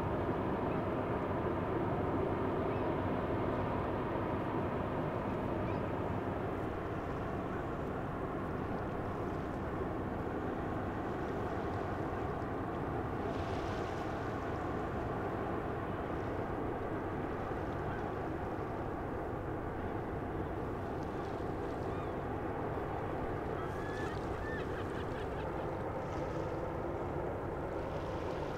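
Steady low rumble of a passing bulk carrier's engine, with water noise along its hull. A few faint bird calls, from gulls or waterfowl, come through now and then.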